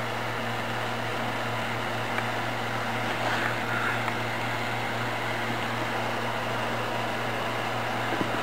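Steady low mechanical hum with a constant hiss, unchanging throughout.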